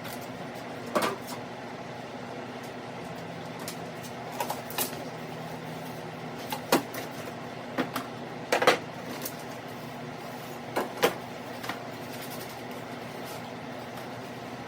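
Scattered knocks and clunks of gear being handled and pulled out of a side-by-side's cargo bed, the loudest a little past the middle, over the steady hum of a swamp cooler.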